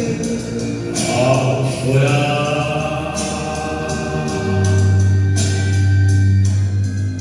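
Bolero played on electronic keyboards: sustained, choir-like chords over a steady bass, with a low held note entering about halfway through.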